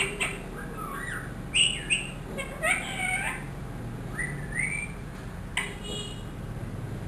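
Pet ringneck parakeet calling: a string of short squawks and chirps, several of them gliding up and down in pitch.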